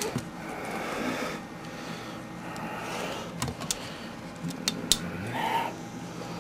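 Handling of a metal tape measure against a cardboard box: low rustling with a few sharp clicks a little past the middle.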